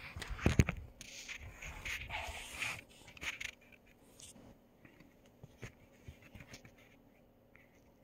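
Handling noise on a handheld camera's microphone: a brief heavy thump about half a second in, then scraping and rubbing for a few seconds, settling into quiet with a few small clicks.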